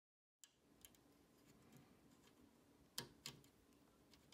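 Faint plastic-and-metal clicks of a 24-pin DIP socket being pressed into a motherboard's through-holes: light scattered ticks, then two sharper clicks about three seconds in, over near silence.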